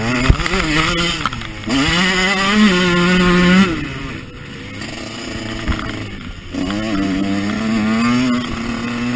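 Husqvarna CR 125 two-stroke motocross engine revving hard under throttle, heard from on the bike. The revs hold high, drop off sharply nearly 4 s in as the throttle is shut, run lower for a couple of seconds, then climb again about 6.5 s in and hold; a sharp knock sounds just after the start.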